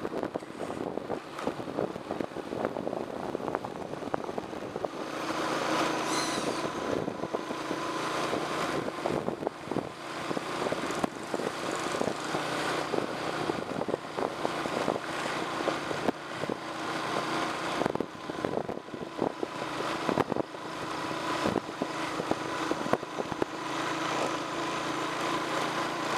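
Small motorbike engine running steadily at cruising speed, with frequent short knocks and rattles throughout; the engine gets a little louder about five seconds in.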